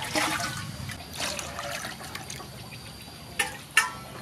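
Water splashing and trickling as it is scooped out of a large glazed ceramic water jar and poured into a stainless steel bowl. Two sharp knocks come near the end.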